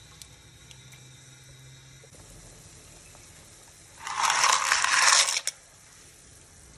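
Dry macaroni shells poured into a metal pot of boiling water: a rattling clatter of pasta hitting the pot, lasting about a second and a half, starting about four seconds in. Under it, a faint steady hiss.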